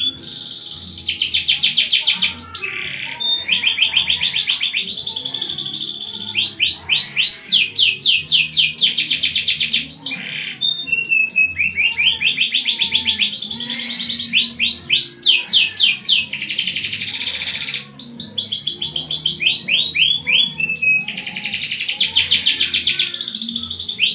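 Domestic canary in full song: long phrases of fast, high trills and rolls made of rapidly repeated notes, broken by a few brief pauses.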